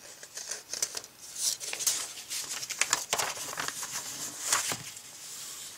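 A sheet of paper being handled and refolded by hand: rustling and short, scratchy strokes across the paper in an irregular run.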